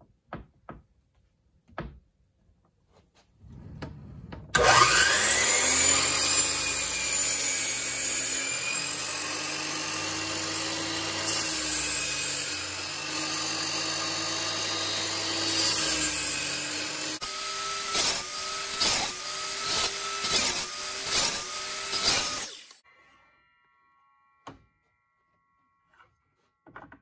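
A Hercules 12-inch sliding compound miter saw spins up about 4 seconds in, runs loudly and cuts into wood. Near the end it makes a quick run of about six short cuts, with the motor's pitch dipping at each one, then stops about 22 seconds in. These are repeated shallow passes set by the depth stop, cutting a dado.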